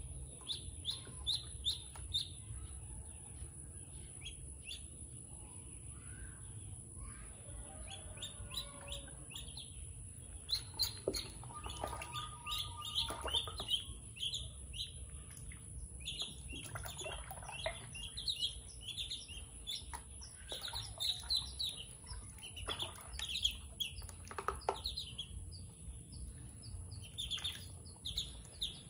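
Ducklings peeping: many short, high chirps, scattered at first and then coming in quick runs.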